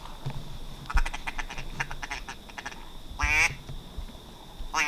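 Duck quacking: a run of quick soft ticks in the first couple of seconds, then two short quacks, one about three seconds in and one near the end.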